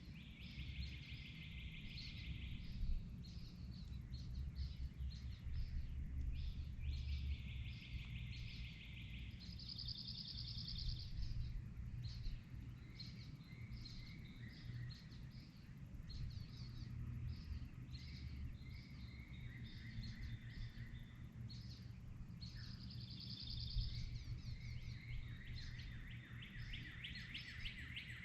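Dawn chorus of several songbirds: repeated even trills about two seconds long, some higher-pitched than others, with scattered short chirps in between. A steady low rumble runs underneath.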